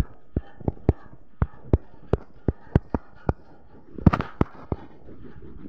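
Fingertips tapping a phone's touchscreen while dabbing a smoothing brush: a string of sharp, irregular clicks, about three a second, with a quick cluster of several taps about four seconds in.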